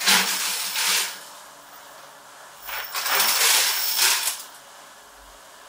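A load of small steel bolts poured from a perforated plastic basket into a machine's steel chute, the metal pieces clattering and rattling together as they slide out. It comes in two pours: one of about a second at the start, then a longer one of about a second and a half near the middle.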